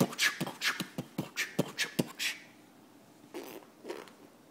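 Beatboxed "techno music": a fast run of mouth-made clicks and puffs, about five a second, for a little over two seconds. After a short pause come a couple of soft voice sounds.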